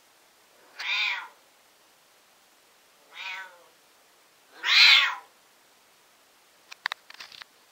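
Siamese cat meowing three times, each call about half a second long and a couple of seconds apart, the third the loudest; the uploader takes it for a cat calling in heat. A few short clicks near the end.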